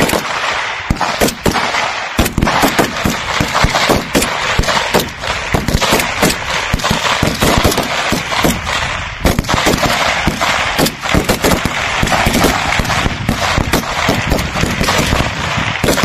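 Rifle gunfire on a firing range: many shots in rapid, uneven succession, some overlapping, from prone shooters.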